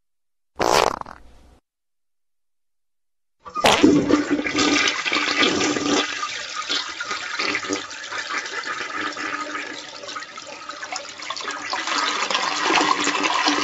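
A short noise about half a second in, then a flush toilet flushing from about three and a half seconds in: water rushing and swirling into the bowl and draining away.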